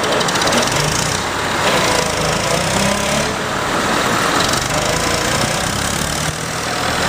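Heavy machine engine running steadily with a dense, noisy rumble, the cartoon engine sound of a working bulldozer.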